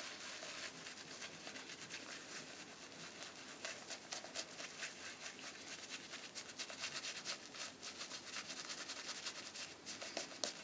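Boar-bristle shaving brush whipping Williams soap lather in a rubber shaving mug: a soft, steady swishing with many fine wet crackles, the lather just revived with a dab of water.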